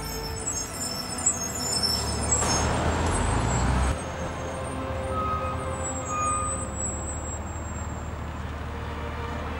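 Shuttle bus driving past close by: a low engine rumble with a rush of noise that swells and then cuts off abruptly about four seconds in. After that, a quieter, steady traffic hum with faint music underneath.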